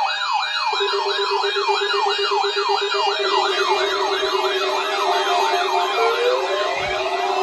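Electronic siren sweeping rapidly up and down, about three times a second, with a steady buzzing tone joining about a second in. Near the end, gliding synthesizer-like tones come in over it.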